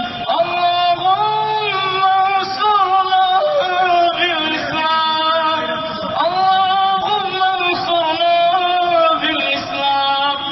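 A man's voice chanting Quran recitation in long, melodic held phrases, the pitch wavering and ornamented within each note, with brief breaks between phrases.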